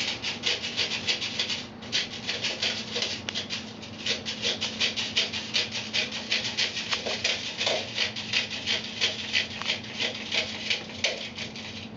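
Airsoft BBs rattling into the loading hole of an airsoft claymore mine as it is filled by hand, in quick repeated bursts of rattling, with a short pause about two seconds in.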